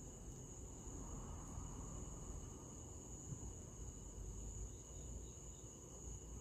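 Crickets trilling steadily, one unbroken high-pitched trill, over a low rumble.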